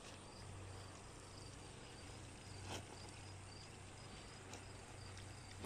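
Faint insect chirping: short high-pitched chirps repeating steadily about three times a second over a low hum, with a soft tap about halfway through.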